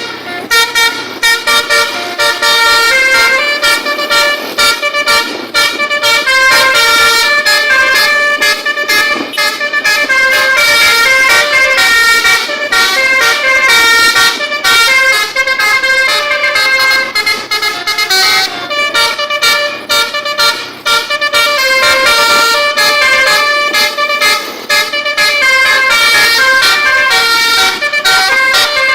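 Bus telolet horn, the Indonesian multi-tone musical bus horn, playing loud tunes of stepped notes almost without pause, with a few short breaks.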